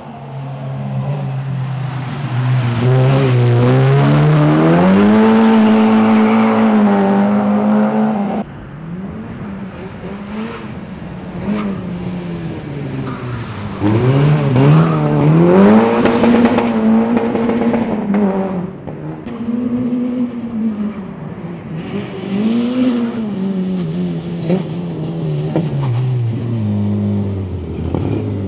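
Peugeot 106 rally car engine revving hard, its pitch climbing under acceleration and dropping as the driver lifts and changes gear, several times over as the car drives past. The sound breaks off suddenly about eight seconds in.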